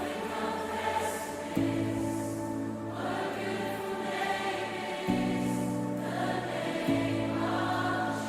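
Background music: a choir singing a slow song over held bass notes that change a few times.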